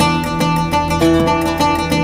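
Music led by a plucked string instrument playing many quick notes over a steady low drone.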